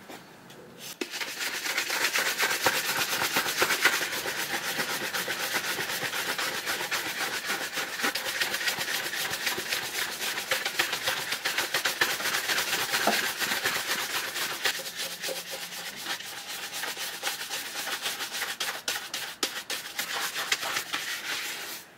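Shoe brush scrubbing a shell cordovan leather shoe in fast back-and-forth strokes, a dense scratchy rubbing, as the brush works cordovan cream into the leather to bring up the shine. The brushing starts about a second in and stops abruptly at the end.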